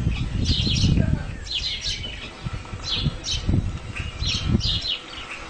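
A small bird chirping over and over, short high chirps in quick clusters about once or twice a second, over a low rumble that is loudest in the first second.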